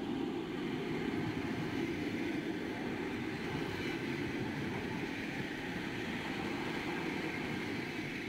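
CRH high-speed electric train moving along a station platform: a steady rumble of wheels and running gear, with a faint whine that slowly rises in pitch as the train gathers speed.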